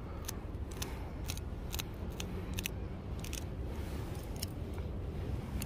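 Scissors snipping off the venomous fin spines of a rabbitfish (aigo): a series of sharp, irregularly spaced snips, some coming in quick pairs.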